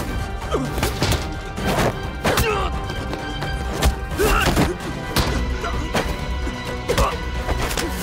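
Hand-to-hand fight: repeated punch and body-impact hits, several a second at times, over dramatic background music.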